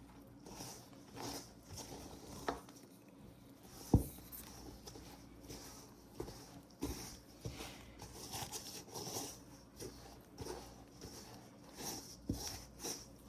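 Dough whisk stirring a very wet, sticky bread dough in a mixing bowl: soft squelching with irregular knocks of the whisk against the bowl, the sharpest about four seconds in.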